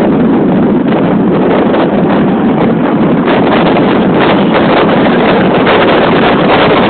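Loud, steady rush of wind buffeting the microphone, as heard while riding a motorcycle at speed.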